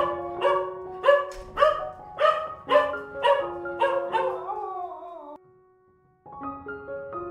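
A dog barking over and over, about two barks a second, the last call sliding down in pitch, over soft background music. The barking stops about five seconds in, and after a short silence the music carries on.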